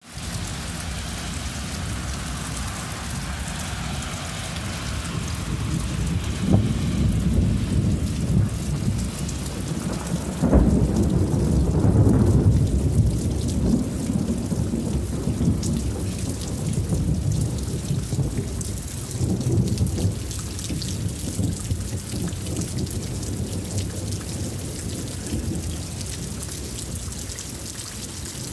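Thunderstorm: a steady hiss of rain with thunder rolling through it. A low rumble builds about six seconds in, a sharp crack about ten seconds in sets off the loudest, longest rumble, and a fainter roll comes near twenty seconds.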